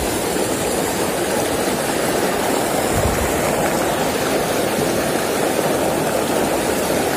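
Shallow rocky river running steadily over stones and small riffles: a continuous rushing of water.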